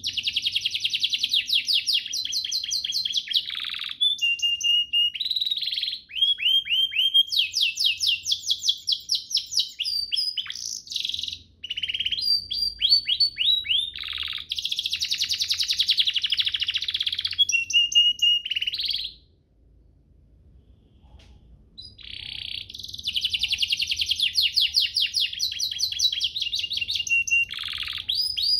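Domestic canary singing long, fast trilled phrases of rapidly repeated high notes mixed with falling sweeps. The song breaks off for a pause of a couple of seconds about two-thirds of the way through, then resumes.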